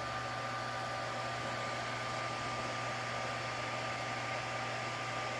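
Creality Ender 3D printer running mid-print: a steady whir of its fans with a few steady high tones over it.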